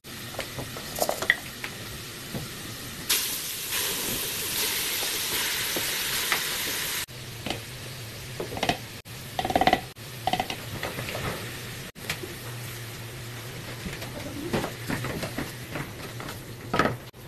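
Food frying in aluminium pots, with wooden spoons stirring and scraping against the metal and knocking on the rims. The sizzle grows louder about three seconds in and cuts off abruptly about seven seconds in.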